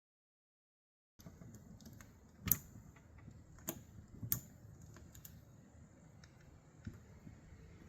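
A few sharp mechanical clicks and clacks of handling over a faint background hiss. The loudest comes about two and a half seconds in, with others a little after and a weaker one near the end. The first second is dead silent.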